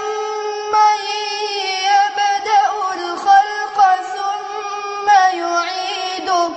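A boy reciting the Quran in the melodic tajwid style: one high, unaccompanied voice holding long notes that waver in ornamented turns, with short breaks between phrases.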